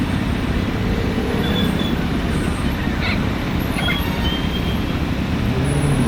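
Steady city traffic noise and engine rumble heard from a motorcycle, with a few faint short high tones mixed in.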